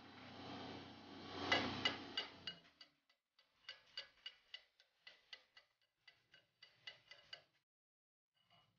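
Chipping hammer tapping the slag off a fresh weld bead on a 19 mm round bar: a run of short, sharp metallic ticks, several a second. The loudest clicks come about a second and a half in over a faint hiss, and the tapping stops about a second before the end.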